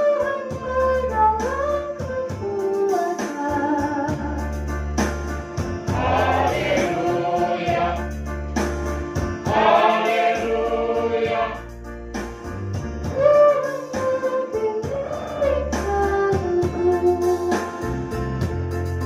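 Mixed choir of men and women singing a church song in rehearsal, over a steady low accompaniment. The voices swell into a fuller, louder passage twice in the middle.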